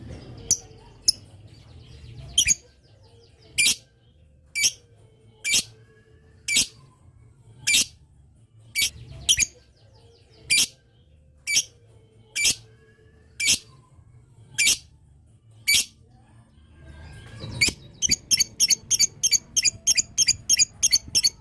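Lovebird calling: sharp, high single calls about once a second, then, near the end, a fast run of short clipped calls at about five a second, the rapid 'ngetik' (typing) chatter used to provoke other lovebirds into answering.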